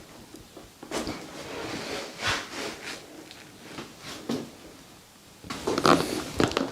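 Chiropractic adjustment: scattered short knocks and creaks of body handling and joint cracking, with a louder run of sounds near the end.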